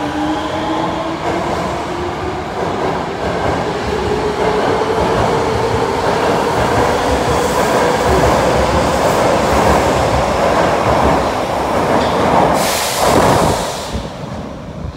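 Osaka Metro Midosuji Line subway train pulling out along the platform: its motor whine rises steadily in pitch as it gathers speed, over the rumble of the wheels on the rails. About thirteen seconds in there is a short, loud rush of noise.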